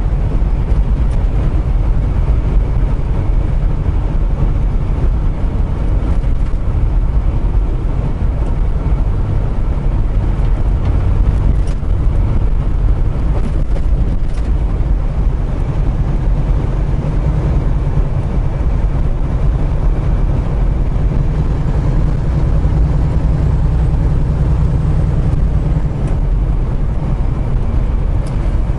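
Semi truck driving, heard from inside the cab: a steady low engine drone with road noise.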